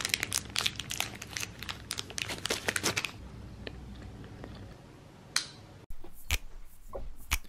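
Plastic wrapper of a Milky Way chocolate bar crinkling and tearing as it is opened: a dense run of sharp crackles for about three seconds, then a few scattered rustles and clicks.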